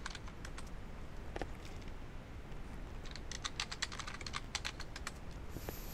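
Typing on a computer keyboard: two bursts of quick keystrokes, one right at the start and a longer one from about halfway, with a short pause between.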